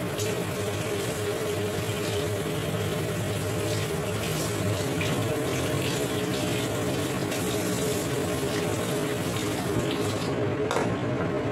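Kitchen tap running into the sink, the stream splashing over hands and a utensil being rinsed under it. The water stops about ten seconds in. A steady low hum runs underneath.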